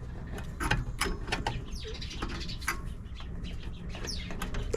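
Birds calling with short chirps that sweep downward, over scattered small clicks and knocks.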